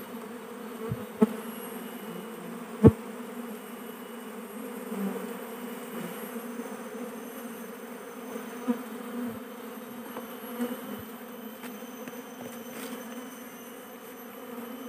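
A mass of Asian honey bees (Apis cerana) buzzing steadily as the clustered colony is handled, with a few short knocks, the sharpest about three seconds in.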